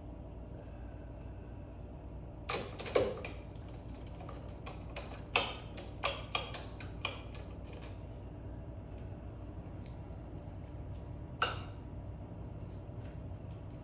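Scattered metal clicks and knocks of hand tools and parts during reassembly of a mini bike's front fork. They come in a short burst about three seconds in, a run of taps between five and seven seconds, and one more knock near the end, over a steady low hum.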